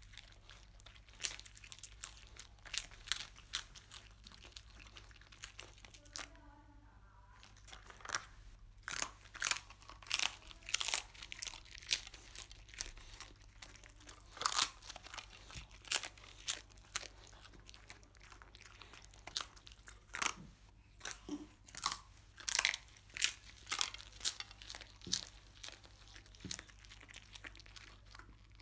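A dog crunching and chewing crisp scorched-rice crust (nurungji), in quick, irregular crunches with a short pause about six seconds in.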